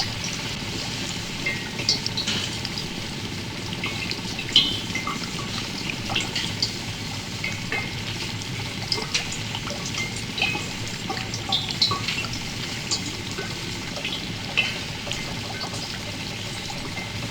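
Bubbling, sizzling liquid: a steady fizzing hiss with many small, irregular pops.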